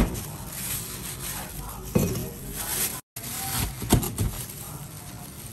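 Knife cutting crispy fried breaded squid on a plastic cutting board: a few sharp knocks as the blade strikes the board, near the start, about two seconds in, and twice close together around four seconds, with the crust crunching under the blade.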